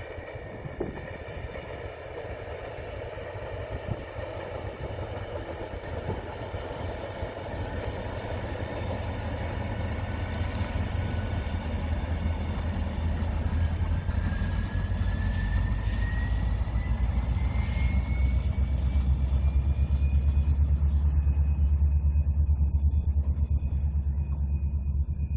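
Korail diesel locomotive hauling a train of oil tank wagons: its engine's deep rumble grows steadily louder as it comes closer, with a high whine that climbs in pitch about halfway through.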